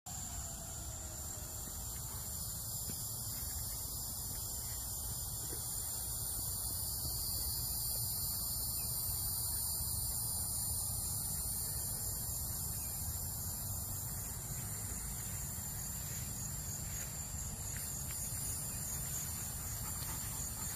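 Steady chorus of insects in the vegetation: a continuous high-pitched buzz held at a few constant pitches, over a low rumble.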